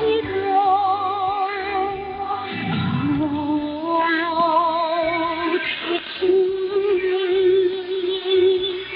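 A song with a female singer using wide vibrato over instrumental accompaniment, heard as a shortwave radio broadcast through a narrow receiver bandwidth that cuts off the treble.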